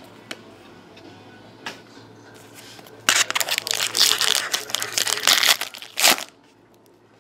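Foil wrapper of a 2013-14 Panini Select hockey card pack being torn open and crinkled by hand, loud and crackly from about three seconds in until just after six seconds. Before that, a few soft clicks of cards being handled.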